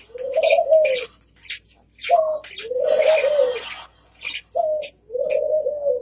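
A dove cooing in a repeated two-part phrase, a short note followed by a longer rolling coo, three times. Small sharp clicks come between the coos, from the Hahn's macaw cracking seeds in its beak.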